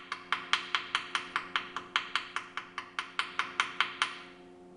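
Small hammer rapidly tapping a fresh weld on a cast-iron tractor axle housing, about five sharp, ringing strikes a second, stopping about four seconds in.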